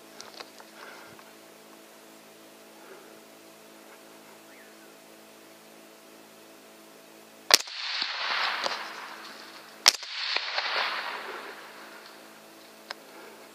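Two sharp rifle shots about two and a half seconds apart at feral hogs, each followed by a second or so of rushing noise that fades out.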